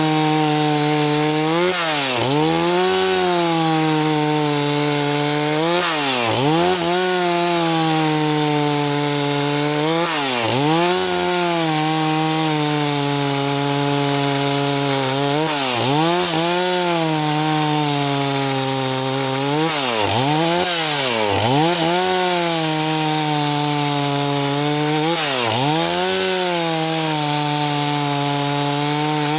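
Stihl 038 single-cylinder two-stroke chainsaw running at high revs and sawing wood. Its pitch drops briefly and recovers, again and again, every few seconds.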